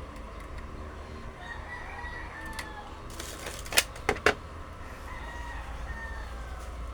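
Two drawn-out bird calls in the background, the first about a second and a half in and the second near the end. Three sharp clicks come in quick succession midway and are the loudest sound, over a steady low hum.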